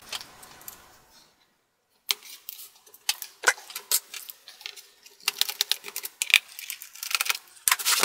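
Quick clicks, taps and small rattles of a plastic laptop bottom case being handled on a desk. They start about two seconds in and come thickest in the second half.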